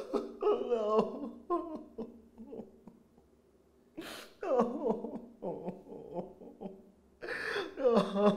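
A man sobbing and wailing in grief: three bouts of breaking cries that slide down in pitch, the second and third each starting with a sharp gasping breath in.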